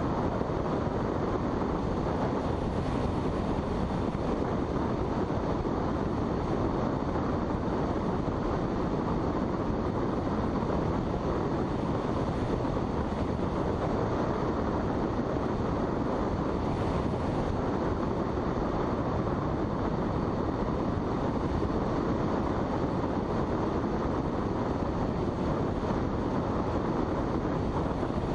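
Steady rushing airflow noise of a glider in flight, even and unchanging throughout.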